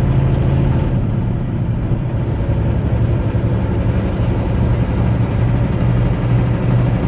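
Semi truck's diesel engine running steadily under way, a constant low hum with road noise.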